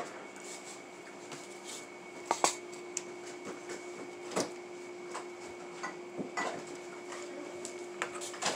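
Scattered light clicks and knocks of dishes being handled at a table, a plate and a baking pan, with the loudest taps about two and a half seconds in and again just past four seconds. A faint steady hum runs underneath.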